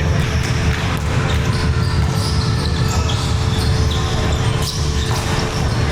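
Indoor volleyball play: the ball is struck several times, sharp impacts that ring in a large hall, over a steady low rumble.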